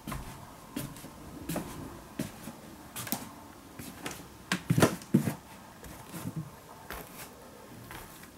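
Footsteps and knocks on wooden stairs and floorboards, irregular thumps about once a second, with a quick run of louder ones about halfway through.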